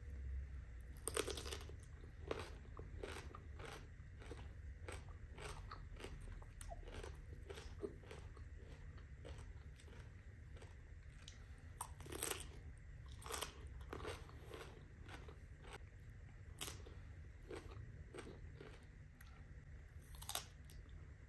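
Crisp bites into a raw cucumber followed by crunchy chewing heard close up. Loud bite cracks come about a second in, twice a little past halfway, and once near the end, over a low steady hum.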